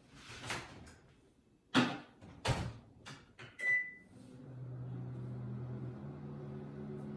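Microwave oven being loaded and started: its door opens and shuts with a few clunks, a single keypad beep sounds, and the oven starts running with a steady hum.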